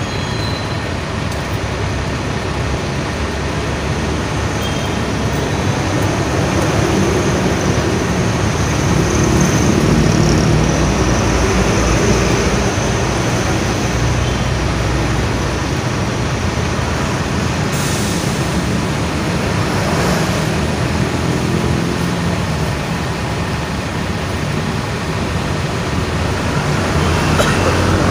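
Steady rumble of bus engines and road traffic, swelling a little about a third of the way through.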